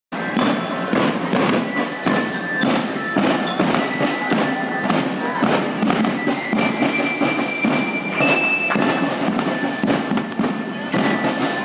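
Marching band playing in a street parade: drums beating a steady march rhythm under the ringing notes of bell lyres.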